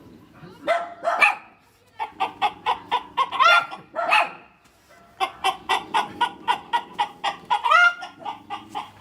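Hen cackling: runs of quick clucks, about five a second, each run building to a louder drawn-out call, with a short break about halfway. This is the cackle a hen gives around laying an egg.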